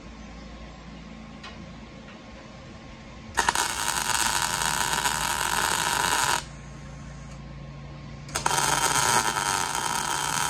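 MIG welder crackling steadily as plug welds fill drilled holes in overlapping sheet-metal body panels: two welds of about three seconds each, the first starting about a third of the way in and the second near the end, each laid in a small circle to make a flat weld that mimics a factory spot weld.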